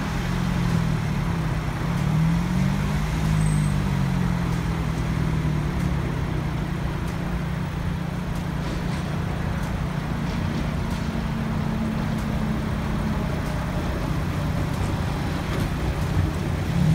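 City street traffic: cars driving by and an articulated tram approaching and rolling past close by near the end, over a steady low hum.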